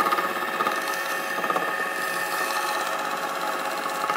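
7.5 kW three-phase induction motor, fed from a UPS battery through its inverter, humming steadily while a wooden block is pressed against its spinning shaft as a friction load. The motor keeps running under the load, its speed sagging slightly.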